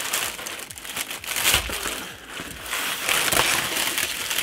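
Honeycomb kraft paper packing wrap crinkling and rustling as it is pulled up out of a cardboard box, with a couple of soft knocks.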